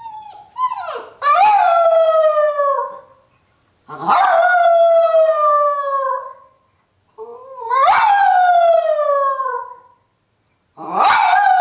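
Miniature poodle howling, four long howls a few seconds apart, each rising quickly and then sliding slowly down in pitch. The dog is howling in protest at being left home alone.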